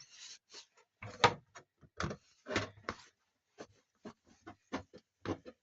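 A cloth rubbing and wiping over a plastic tumble dryer part as it is handled, heard as many short, irregular rubs and light knocks.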